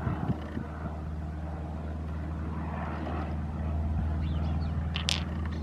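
A steady, low engine drone, swelling a little about four seconds in. A few short high chirps and a brief sharp sound come near the end.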